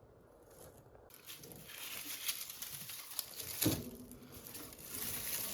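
Dry, papery rustling and crackling as cured onions and their loose skins are handled and sorted, with one sharper knock about two thirds of the way through.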